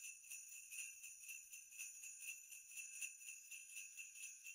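Faint jingle bells shaken in a steady, even rhythm.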